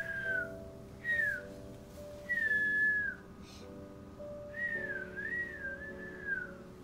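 A person whistling to pet budgies in four short phrases, mostly falling in pitch, the last one longer and wavering up and down, over background music of held chords.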